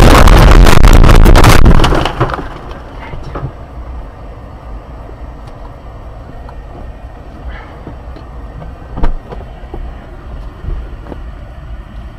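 Car crash heard from inside the car: a loud, continuous clatter of impacts and scraping that stops suddenly about two seconds in. It is followed by a low steady rumble with scattered small knocks and one sharper knock about nine seconds in.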